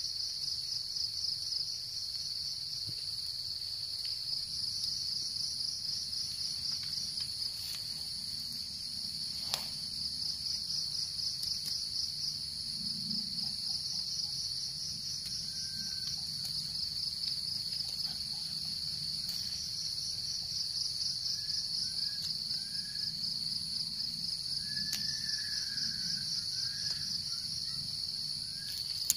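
A dense insect chorus: a steady high shrill that swells every few seconds into a fast pulsing trill, over a thinner constant whine higher up. Faint short bird chirps come in during the second half, and there is a single sharp click about a third of the way through.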